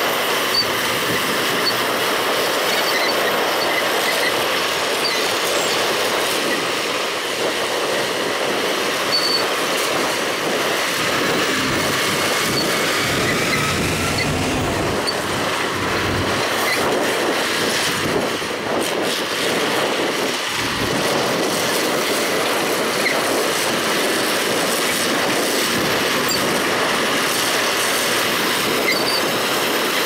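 Heavy earthmoving machinery, a dump truck and a crawler bulldozer, working steadily, with a dense, even mechanical noise throughout.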